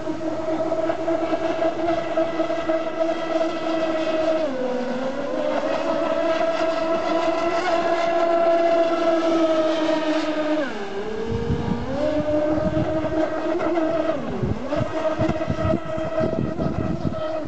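Twin brushless electric motors of a large RC speedboat whining at speed, a steady high-pitched whine whose pitch sags and climbs back three times as the throttle eases and opens again.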